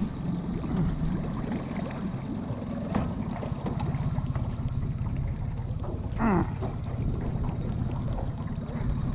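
Boat motor running steadily at trolling speed, with water and wind noise on the microphone. About six seconds in, a brief high squeal slides quickly downward.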